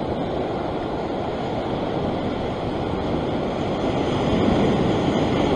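Ocean swell breaking and washing over a rock ledge: a steady rush of surf that swells a little louder about four seconds in.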